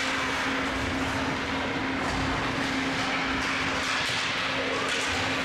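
Ice hockey arena sound during play: an even wash of skates on the ice with scattered faint clicks of sticks and puck, over a steady hum.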